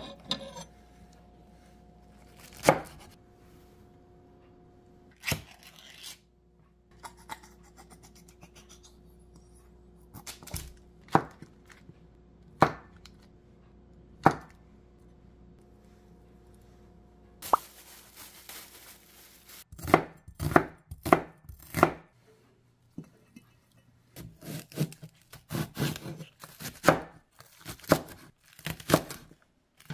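Wide-bladed kitchen knife striking a wooden cutting board. Single knocks a few seconds apart come as a block of luncheon meat is sliced, then quick runs of chopping through green onion in the second half.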